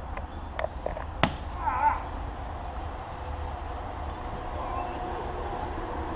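A few sharp knocks of padded foam weapons striking in a fight, the loudest about a second in, followed by a brief wavering shout from a fighter just before two seconds in.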